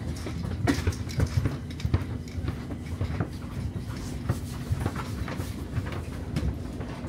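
Stockholm metro train running as it pulls out of a station, heard from inside the car: a steady low rumble and hum, with many irregular clicks and knocks from the wheels on the track.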